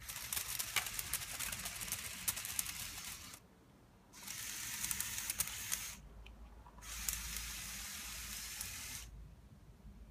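Small electric motors and plastic gears of a remote-controlled Lego Technic 42042 crawler crane whirring in three runs of two to three seconds each, with short pauses between, as the crane slews and moves on its tracks. Scattered light clicks from the gearing run through the whirring.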